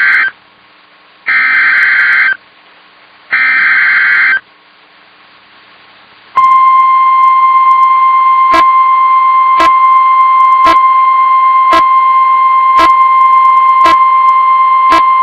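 Emergency Alert System SAME header: three buzzy digital data bursts of about a second each, separated by short gaps. A couple of seconds later comes a steady single-pitch 1050 Hz weather-radio warning alarm tone that holds for about nine seconds, with a faint click about once a second.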